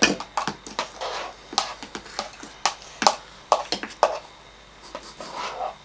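Irregular clicks and taps of a spoon against a bowl while slime is being stirred and scraped.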